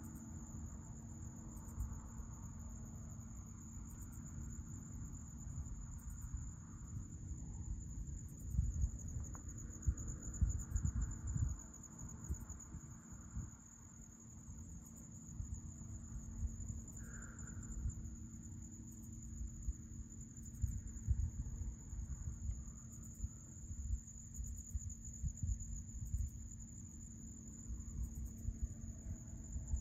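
Insects trill in one steady high-pitched drone. Wind buffets the microphone in irregular low gusts, loudest around ten seconds in.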